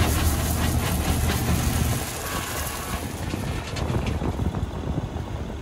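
Case TV380 compact track loader's diesel engine running as its bucket tips crushed granite gravel into a utility trailer, the stones pouring and rattling onto the trailer bed. The engine's low hum drops off about two seconds in.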